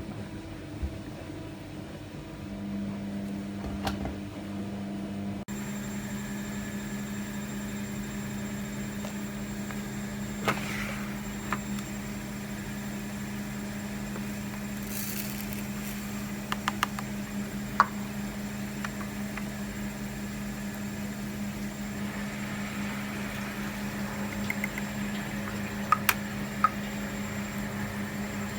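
Miele MedicWash W2585 front-loading washing machine running, with a steady hum that starts about two seconds in and a few short clicks and knocks.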